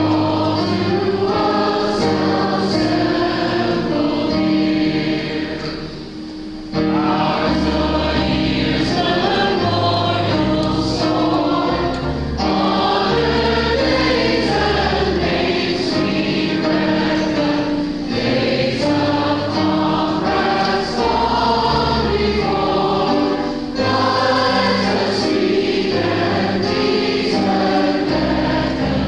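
A congregation singing a processional hymn together, with instrumental accompaniment holding steady bass notes. The sound thins briefly between phrases about six seconds in.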